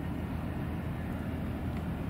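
Steady low outdoor rumble with no clear pitch, with a faint tick near the end.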